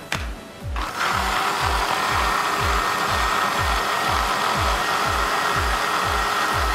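Electric countertop blender switched on about a second in and running steadily, puréeing sautéed vegetables and water into a soup base. Background music with a steady beat plays underneath.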